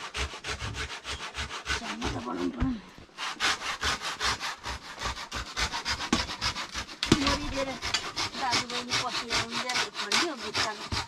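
Handsaw cutting a wooden door frame in quick back-and-forth strokes, about five a second, with a short pause about three seconds in.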